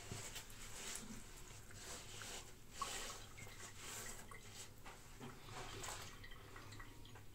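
Water splashing and dripping at a bathroom sink, in irregular crackles and trickles. One sharp knock comes about three seconds in.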